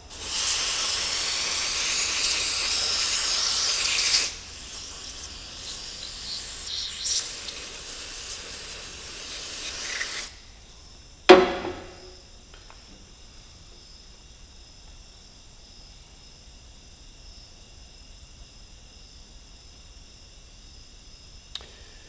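Aerosol spray cleaner hissing out of the can in a long loud burst of about four seconds, then a softer spray for about six seconds more. About a second after it stops there is one sharp knock.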